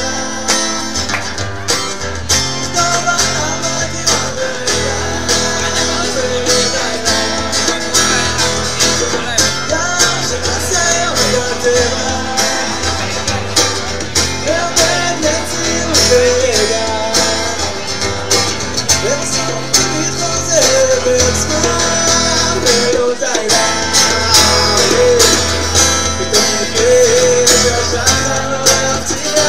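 Live acoustic band playing: several acoustic guitars strummed in a steady rhythm, with a singer's voice coming in about halfway through.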